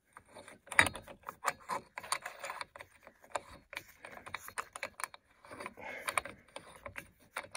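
Irregular metallic clicking and rattling as a socket on a CV axle nut is turned by hand, running the nut down the axle's threads.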